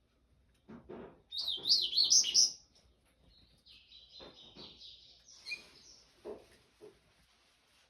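Papa-capim seedeater singing: a loud burst of quick up-and-down whistled notes, then a softer run of twittering, with a few soft taps in between.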